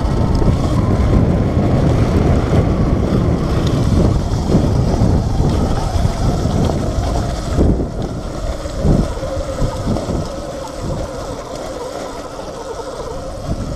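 Wind buffeting the handlebar camera's microphone and tyre rumble over grass and dirt as a Sur-Ron Light Bee X electric dirt bike is ridden fast off-road, with a faint steady whine underneath. It eases off slightly near the end.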